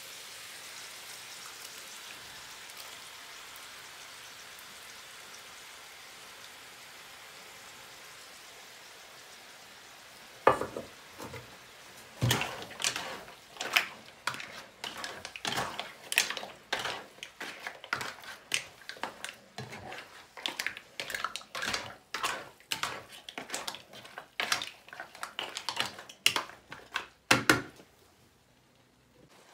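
Hot frying pan sizzling with a steady hiss that slowly dies away as sauce settles over spaghetti and mussels. After about ten seconds comes a run of irregular clacks and scrapes as a spatula stirs the pasta and knocks against the pan and the mussel shells, one or two a second. A last loud knock comes shortly before the end.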